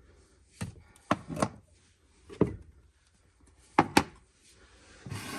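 Candle jars being pulled off a shelf and set down, giving about six short knocks and clunks with pauses between them.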